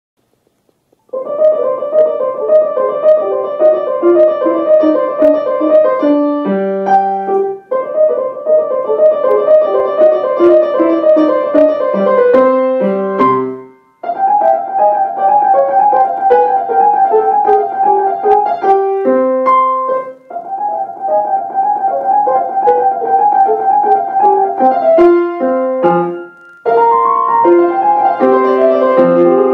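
Grand piano played solo: quick repeated notes hammered at a steady high pitch over a line that steps downward, in short phrases. Each phrase ends with a few separate notes and a brief pause, about every six seconds. The playing starts about a second in.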